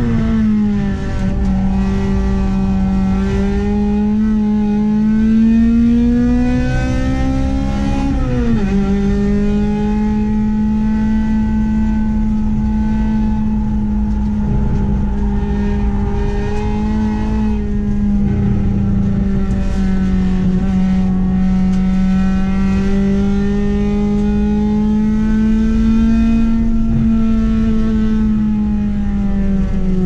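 Honda Accord's H22A four-cylinder engine at high revs under acceleration, with road and wind noise underneath. Its pitch climbs for about eight seconds, drops sharply at an upshift, then holds high and fairly steady, falling off near the end.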